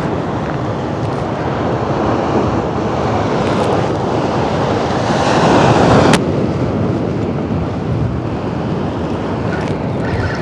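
Ocean surf washing, with wind buffeting the microphone. The rush swells to a peak about six seconds in, then drops off abruptly to a lower, steady wash.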